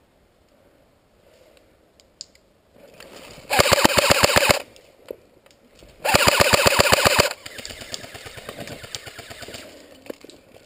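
CYMA CM042S AK-47S electric airsoft gun firing two full-auto bursts of about a second each, a rapid even rattle of the gearbox cycling, with a pause of about a second and a half between them. A fainter, uneven rattle follows the second burst.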